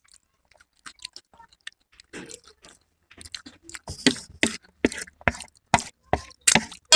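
Close-miked chewing and wet smacking of spicy Maggi noodles. It is faint at first, then from about halfway becomes a quick run of loud mouth smacks, several a second.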